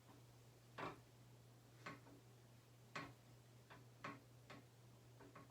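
Faint, sharp clicks roughly once a second over a steady low hum, in a near-silent room.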